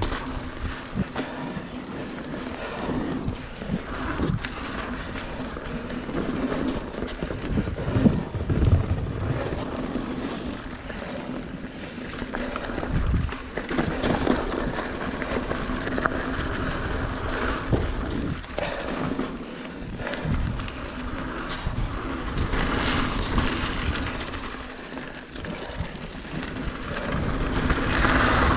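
Mountain bike rolling fast down a dirt trail: tyres running over packed dirt and gravel, with the bike rattling and knocking over bumps throughout and a louder run of knocks about eight seconds in. Wind on the microphone.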